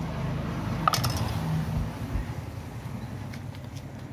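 A spoon clinks once against an aluminium pot about a second in, over a steady low street hum.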